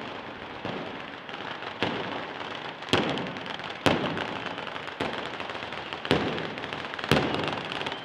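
A batteria of ground firecrackers strung along the street going off in sequence: a continuous crackle of small bangs with louder single bangs about once a second.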